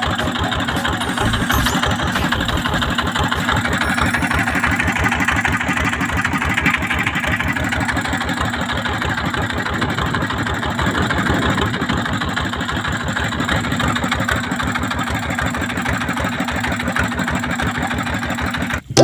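Boat engine running steadily, with a fast, even firing beat.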